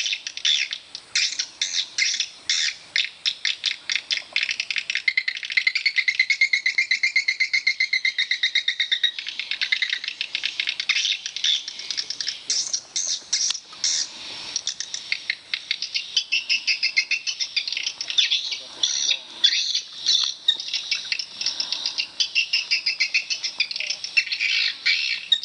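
Swiftlet calls: a dense, continuous chatter of rapid high chirps and twitters, with a buzzing trill from about six to nine seconds in.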